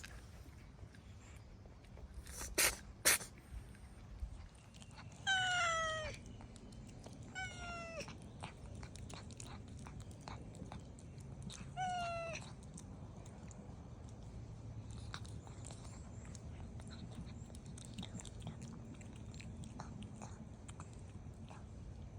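A house cat sneezing twice in quick succession, sneezes the owner suspects come from a cold. It then meows three times, each call falling in pitch, and afterwards chews its food with many small clicks.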